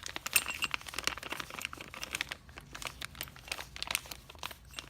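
Plastic bags crinkling and rustling as bagged padlocks are unpacked and handled, with many quick sharp crackles, loudest about half a second in.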